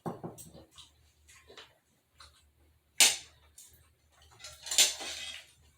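Tableware handled at a meal: a sharp knock about three seconds in, then a scraping rustle near the end, with faint low voices at the start.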